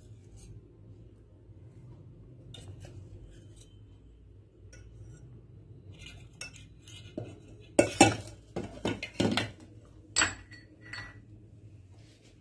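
Metal whisk clinking and scraping against steel bowls as cake batter is scraped out from one vessel into another. There is a cluster of louder clinks about eight to nine and a half seconds in, and one more at about ten seconds.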